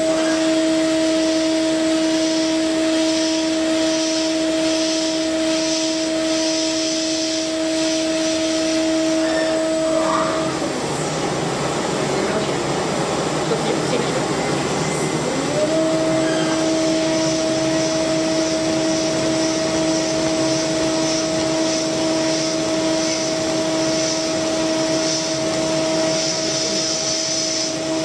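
CNC milling machine spindle whining at a steady pitch while the end mill cuts metal, over a constant hiss. The whine stops about ten seconds in, leaving a rougher noise, then spins back up with a short rising glide about five seconds later and holds steady again.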